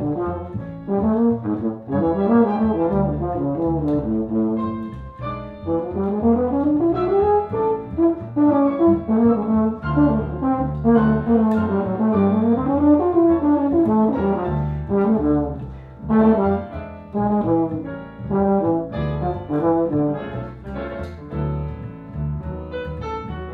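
Euphonium playing a jazz solo line with quick rising and falling runs, over plucked double bass and piano comping. Near the end the euphonium stops and the piano and bass carry on.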